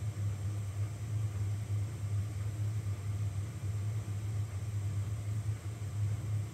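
Elegoo Neptune 4 Pro 3D printer's cooling fans running steadily while the machine sits still, a low hum with an even whirring hiss above it.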